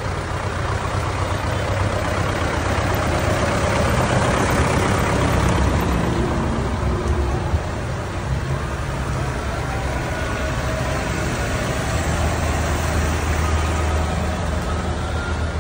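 Diesel engines of farm tractors and a Volvo FH lorry running as they drive slowly past one after another, a steady low engine hum.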